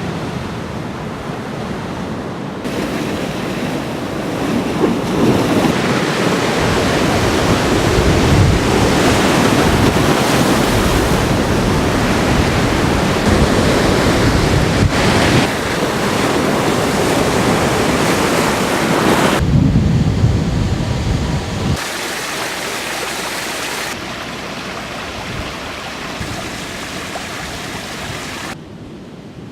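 Typhoon storm noise: wind, heavy rain and rushing water blended into a loud, steady rush, changing abruptly several times between shots.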